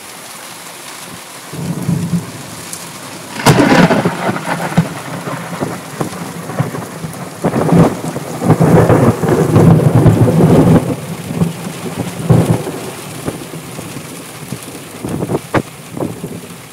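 Thunderstorm: rain with loud rumbling bursts, the sharpest about three and a half seconds in, a longer rumble from about eight to eleven seconds, and another shortly after.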